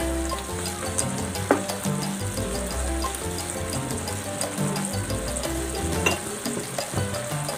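Shrimp in a thick tomato sauce sizzling as it simmers in a pan, with a spatula stirring and scraping against the pan. There are sharp scrapes about a second and a half in and again near six seconds.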